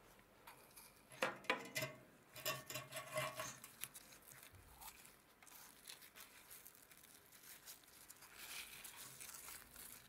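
Rusty burner tube of an antique gas heater being handled and worked loose by gloved hands: a cluster of sharp clicks and scrapes of rusty metal about a second in, then softer rubbing and rustling as it is lifted out near the end.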